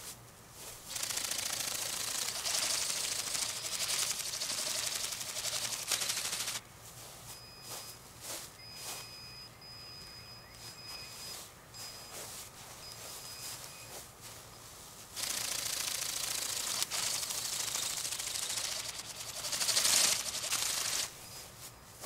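Bionic Bird flapping-wing drone beating its wings in flight, a rapid high buzzing clatter. It starts about a second in and cuts off suddenly after about five seconds, then comes again for about six seconds in the second half.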